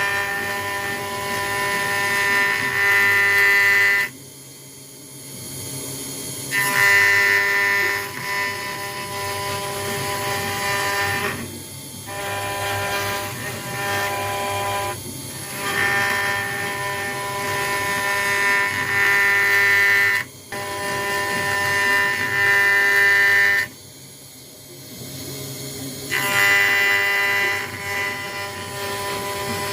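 CNC router engraving acrylic sheet, its motors giving a steady whine of several tones at once; the whine drops away to a low hum a few times and then resumes, as the machine's axes pause between cutting moves.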